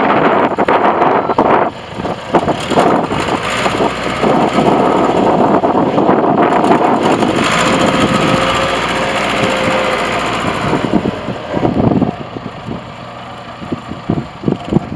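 Caterpillar 416 backhoe's diesel engine running, with a rough, clattery sound; it drops much quieter about twelve seconds in.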